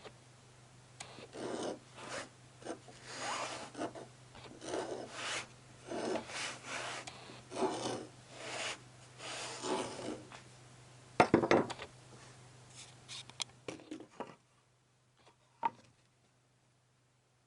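Wood being worked by hand with an abrasive tool, in repeated scraping strokes roughly two a second, as in sanding or rasping a cajon panel. About eleven seconds in, a sharp wooden clatter follows, then a few light knocks, over a low steady hum that stops near the end.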